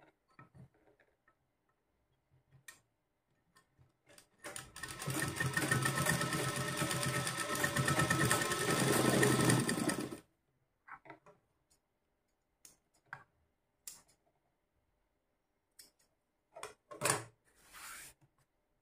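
Domestic sewing machine stitching steadily for about six seconds, starting about four and a half seconds in and stopping sharply. Faint clicks of handling come before and after, with a short louder rustle near the end.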